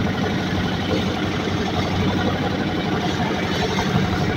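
A fishing boat's engine running steadily under way, a constant low drone, with water rushing and splashing along the hull.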